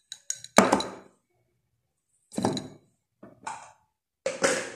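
Handling noise close to the phone's microphone: a sharp thump about half a second in, then three short rustling noises.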